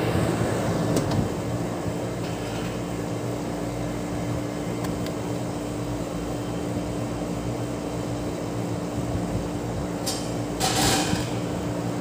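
The outdoor unit of a 5-ton ductable air conditioner runs with a steady hum while it is being charged with R22 refrigerant. A short rush of noise comes through about ten seconds in.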